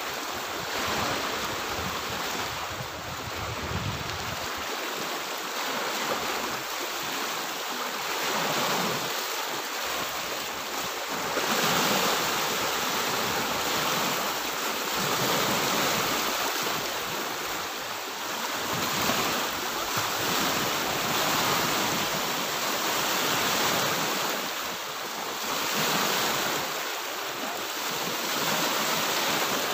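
Small sea waves washing onto a pebble shore and against a stone seawall: a steady surf wash that swells and eases every few seconds.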